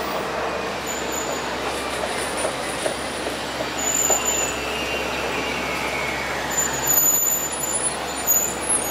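Street traffic noise from a city bus and cars passing close by, over a low steady hum. Midway through, a high squeal falls slowly in pitch for about two seconds.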